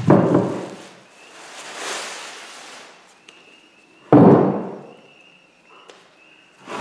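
Handling thumps as a small single-cylinder diesel engine is set down and shifted on a plywood workbench: one loud thump at the start and another about four seconds in, with plastic packaging rustling between.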